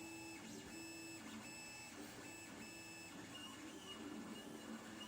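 Lulzbot TAZ 2 3D printer's stepper motors running through short moves, making high steady tones that start, stop and change pitch every half second or so, over a faint low hum.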